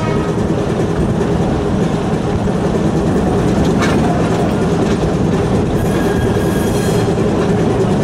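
Diesel shunting locomotive under way, heard from the cab: a steady engine drone mixed with the running noise of the wheels on the rails. A single clack comes about four seconds in, and a brief high-pitched squeal from the running gear sounds about six seconds in.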